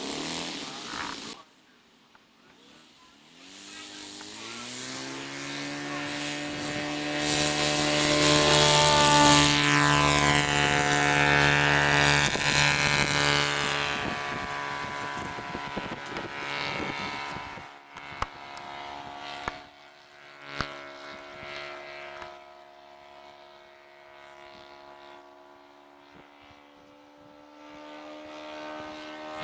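Motor and propeller of a Hangar 9 Cessna 182 radio-controlled model airplane throttling up for takeoff: the pitch rises over a few seconds and the sound peaks, then fades to a steady drone as the plane flies off, and grows louder again near the end as it comes back around. A couple of sharp clicks come through midway.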